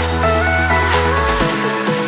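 Background electronic dance music with a synth melody; the low bass drops out about one and a half seconds in.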